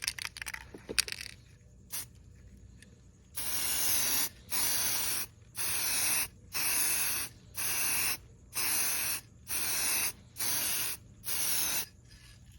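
Clear coat being sprayed over a repaired patch of car body, in about nine short hissing bursts of under a second each, starting a few seconds in.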